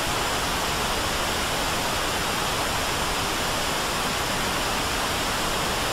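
Steady static hiss, like white noise, spread evenly from low to high pitches and holding one level throughout.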